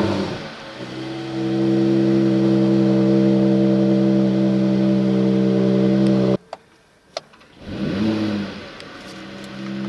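Mercedes-AMG CLS 53's turbocharged 3.0-litre inline-six starting with a brief flare of revs, then running at a steady, even idle. It is switched off suddenly about six seconds in, a click follows, and the engine is started again near the end, flaring up and settling back to idle.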